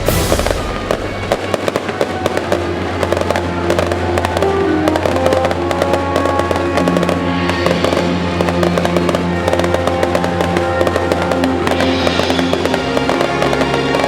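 Fireworks crackling in a dense, rapid stream of pops, opening with a sharp burst. Music plays over it with held notes that step in pitch.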